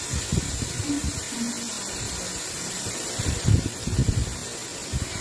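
Chicken wings sizzling in a stainless-steel pot, a steady hiss, with a few low thumps about half a second in, around three and a half to four seconds, and near the end.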